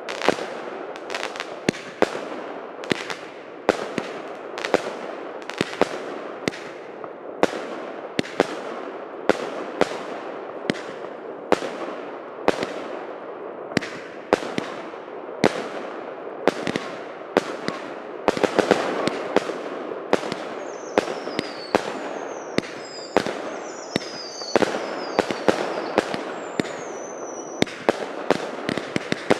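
A Válka Světů firework cake firing a rapid string of shots, about two a second, each bang trailing off in a crackling hiss. From about two-thirds of the way in, several short falling whistles sound among the bangs.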